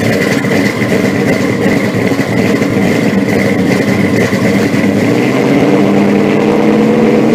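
A loud engine running steadily.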